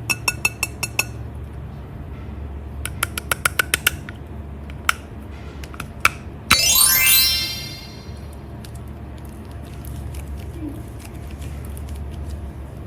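Cartoon-style sound effects: two quick runs of light clinking ticks, then a fast rising pitch sweep about six and a half seconds in, over a low steady hum.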